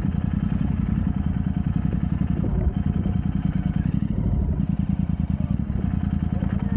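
Motorcycle engine running steadily, a dense low pulsing that holds even.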